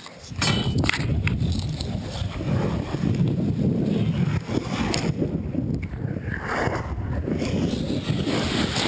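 Water rushing and wind buffeting the microphone as a rider speeds down an open water slide. The noise starts suddenly just after the start.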